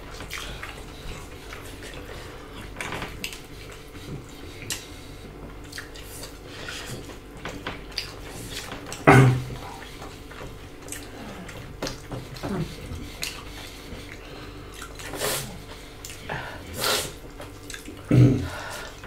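Two people eating with their hands: wet chewing and mouth smacking, fingers working rice and fish on china plates, with scattered small clicks. Two louder short sounds stand out, about nine seconds in and near the end.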